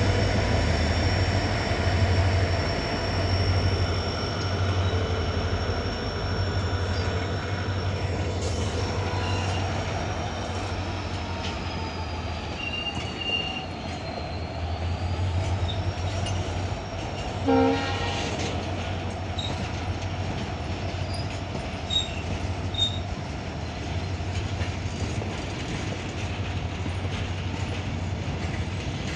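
Slow-moving freight train of covered wagons: a steady low locomotive rumble and the rolling of the wagons, with thin wheel-squeal tones whose pitch sags and rises again in the middle. A short horn blast sounds about two-thirds of the way through, and a couple of sharp clanks follow.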